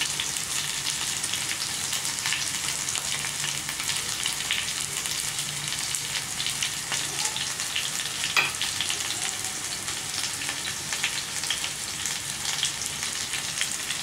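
Chicken drumsticks frying in oil in a pan: a steady sizzle with many small crackles. There is a single sharp clink a little past the middle.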